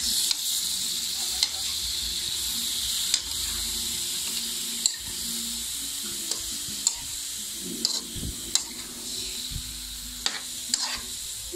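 Raw chicken pieces sizzling steadily in a hot nonstick wok as they are sautéed, turned with a metal spoon that clicks sharply against the pan several times.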